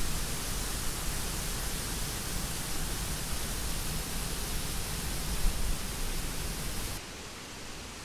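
Small woodland waterfall: water rushing steadily over rocks, with a deep rumble under an even hiss. About seven seconds in the sound drops abruptly to a quieter, duller hiss.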